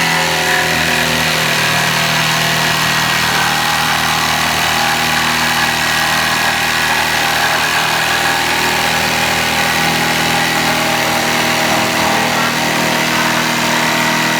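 A motor running steadily at an even pitch, with no change in speed.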